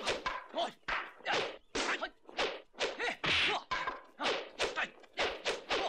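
Rapid series of kung fu film fight sound effects: staff and fist whacks and swishes, about three a second.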